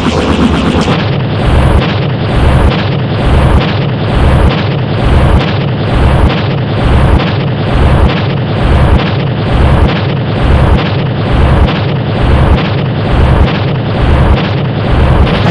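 Loud, heavily distorted electronic sound effect: a dense wall of noise with a deep booming thud pulsing steadily a little more than once a second, settling into that beat about a second in.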